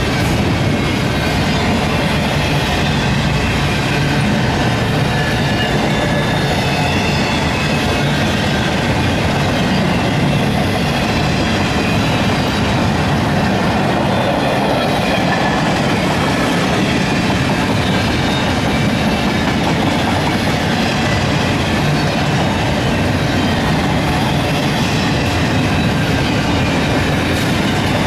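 Double-stack intermodal freight cars rolling past close by: a loud, steady rumble of steel wheels on the rails.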